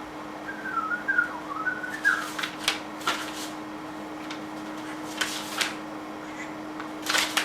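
A short wavering whistle lasting under two seconds, followed by several crackly rustles of paper and plastic packaging being handled, over a steady low electrical hum.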